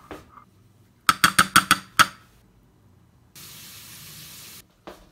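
Cooking at a gas stove: a quick run of about seven sharp clicks, then a steady spraying hiss lasting just over a second that starts and stops abruptly, with one more click near the end.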